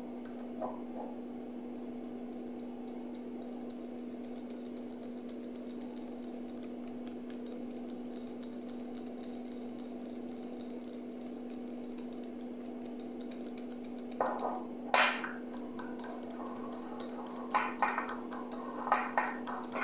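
Wire whisk beating a thick yogurt-and-labneh dressing in a bowl: a fast run of light clicks and scrapes against the bowl, over a steady hum. Louder clinks come in short clusters near the end.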